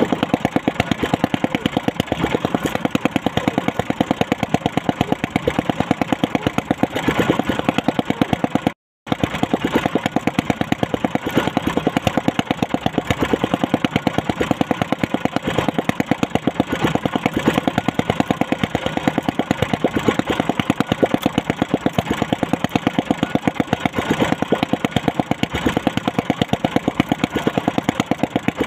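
Small boat engine idling with a steady, rapid, even pulse. It cuts out completely for a split second about nine seconds in.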